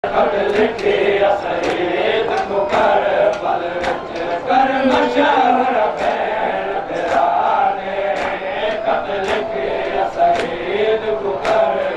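A group of men chanting a Saraiki noha (Shia lament) together, with sharp slaps recurring roughly twice a second: matam, hands striking chests in time with the lament.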